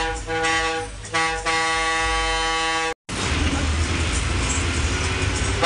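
Bus air horn sounded in a few short blasts and then held for about a second and a half, cut off suddenly about three seconds in. After that, the Ashok Leyland bus's engine and road noise run steadily.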